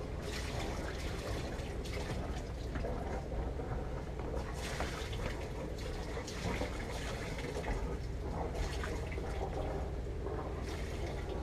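Sailboat's inboard engine running steadily at low speed while motoring, a low rumble under irregular splashing and gurgling of water.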